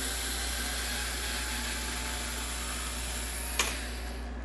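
Small Ryobi cordless driver running steadily, backing a security Torx screw out of a Ridgid 18V lithium-ion battery pack's case. A sharp click comes near the end as the screw comes free, and the driver stops just after.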